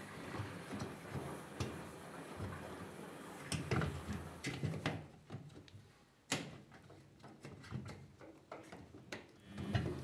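Scattered knocks, clicks and rustles from a gloved hand working inside the stainless steel drum of an old LG front-loading washing machine, with one sharp click about six seconds in.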